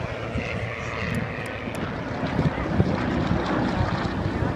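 Propeller airplane engines droning overhead, with an irregular low rumble growing stronger about halfway through.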